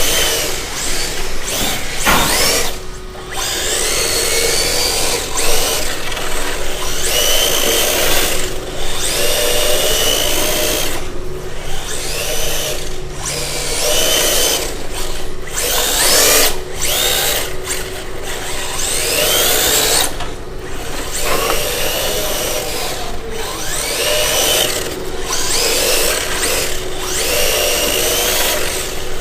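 RC drift car's electric motor whining, its pitch rising again and again as the throttle is applied, over a steady hiss.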